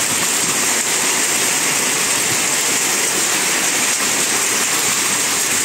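Very heavy hail and driving rain pelting down in a steady, dense roar.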